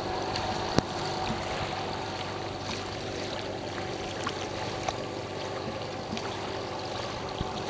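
Small waves lapping and trickling at the water's edge, with a few light ticks, over a faint steady hum from a motorboat out on the water.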